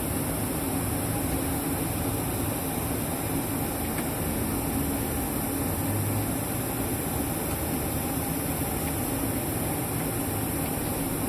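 2005 Isuzu Erga KL-LV834L1 city bus, its diesel engine running steadily, heard from inside the passenger cabin.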